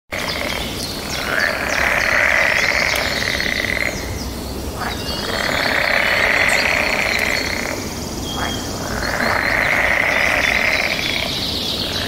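Birds chirping, with short high sweeping calls over a loud buzzing chorus that swells and fades three times, each swell lasting about two and a half seconds.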